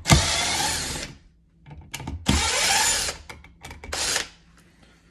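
Power drill/driver whirring in three short bursts, the first about a second long and the later two shorter, as it backs out the screws holding a wall switch.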